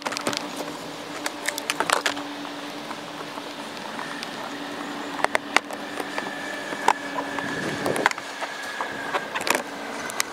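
Irregular plastic clicks, crackles and knocks from the corrugated polypropylene hull of an Oru Inlet folding kayak being folded and fastened together during assembly, over a steady low hum.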